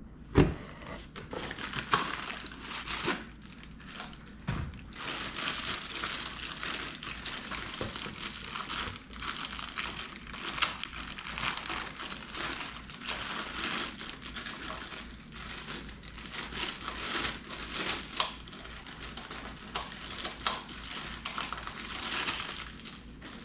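Clear plastic packaging bag crinkling and rustling as it is handled and pulled open around a crossbow part, with a single knock about half a second in.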